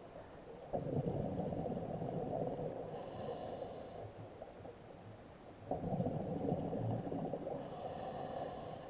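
Scuba diver breathing through a regulator underwater: twice, a long bubbling exhalation is followed by a short inhale with a high, whistling hiss from the regulator.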